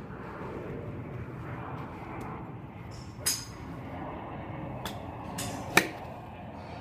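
Golf club striking a ball off a driving-range mat: one sharp crack near the end, just after a brief swish of the swing, the loudest sound. A fainter ringing click comes about three seconds in, over a steady outdoor background.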